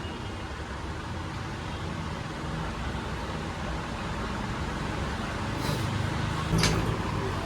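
A motor vehicle engine running steadily with a low rumble that slowly grows louder, and a couple of sharp clicks near the end.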